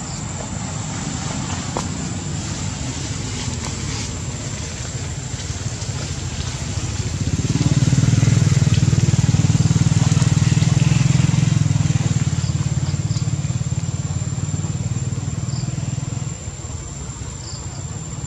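An engine running with a steady low hum, growing louder about seven seconds in and dropping back sharply near the end.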